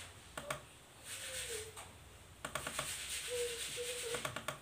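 Keys on an Acer L1410 laptop keyboard being pressed in quick runs of clicks, each key tested in turn.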